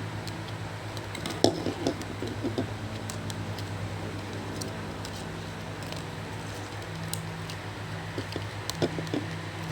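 Scattered clicks and light crinkles of a small plastic toy package being handled and pried at, with a steady low hum underneath.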